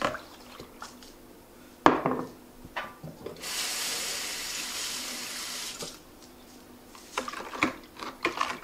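A kitchen faucet runs for about two seconds as a spoon is rinsed under it, after a single sharp knock. Near the end a spoon clicks and scrapes inside a plastic pitcher as it stirs.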